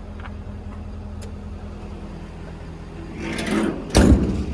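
A metal compartment door on a service-truck body being worked: a short scraping swish a little past three seconds in, then a loud clank about four seconds in. A steady low hum runs underneath.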